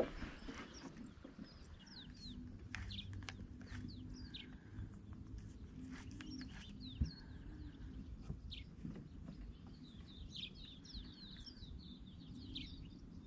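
Small birds chirping and twittering: many short, quick calls, busier near the end. A single sharp knock about seven seconds in.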